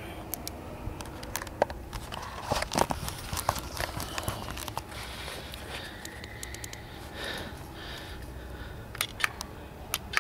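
Rustling and knocking of a handheld camera being moved about, with scattered light clicks and a few sharp clicks near the end as a wall-mounted doorbell switch is pressed.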